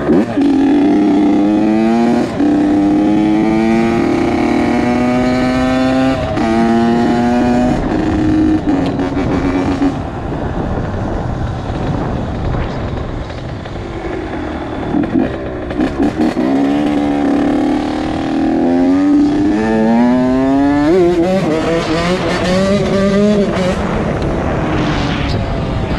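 A 2001 Honda CR80's two-stroke single-cylinder engine revs under load on a ride, its pitch climbing in several pulls, each ending in a sudden drop as it shifts up. For a few seconds in the middle it eases off, then pulls up through the gears again.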